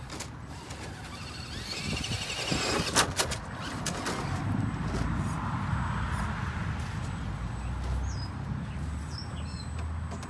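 Vaterra Ascender RC rock crawler's electric motor and gearbox whining as it crawls over the course, with two sharp knocks about three seconds in, then a steady low running sound. Birds chirp now and then.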